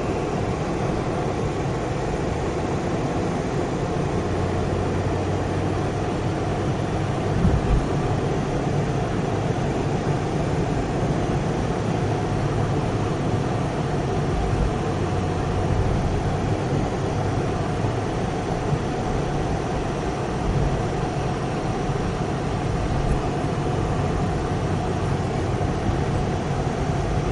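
Steady engine and tyre rumble heard inside a car's cabin while driving, with a short double bump about seven seconds in.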